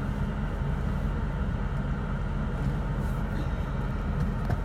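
Idling car engine: a steady low rumble that stays the same throughout.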